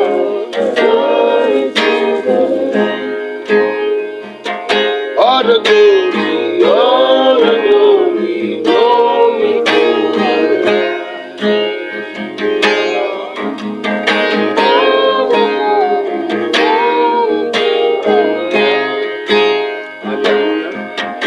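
Music: plucked strings, guitar-like, with a singing voice carrying a gliding melody over them.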